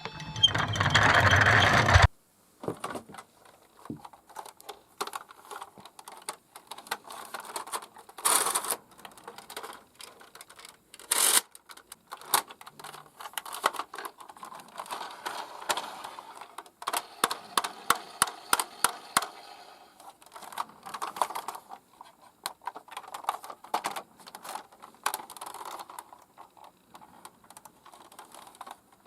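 Toy minicars clicking and clattering as they are handled and run along a hard track, in irregular sharp clicks. It opens with a loud burst of rattling noise lasting about two seconds.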